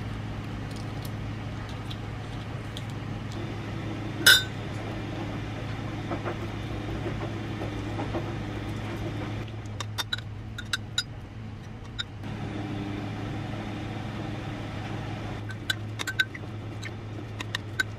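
A spoon clinking and scraping in a ceramic mug while mashing boiled egg and tuna, with one sharp ringing clink about four seconds in and a scatter of lighter taps later. A steady low hum runs underneath.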